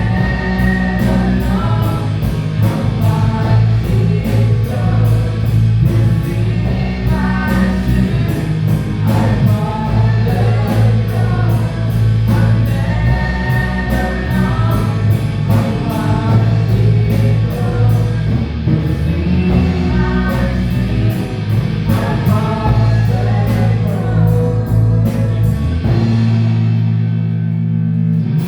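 A live worship band playing a praise song, with singers over bass and drums and a steady tick of cymbals. Near the end the cymbals stop and the bass briefly drops out.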